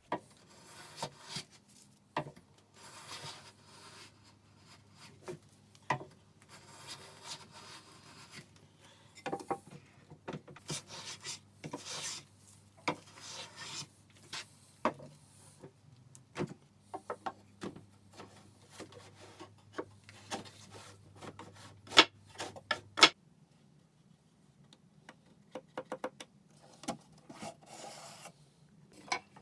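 Hand-tool work on wood: irregular rubbing and rasping strokes with scattered sharp clicks and knocks, two of them loud a little before the end. A faint low hum runs underneath and stops about three-quarters of the way through.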